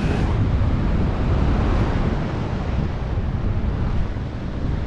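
Loud, steady rush of wind over the camera microphone during wingsuit freefall.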